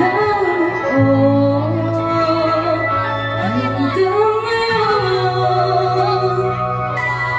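Live band music: a woman sings lead in long held notes over electric guitar, with steady low bass notes underneath.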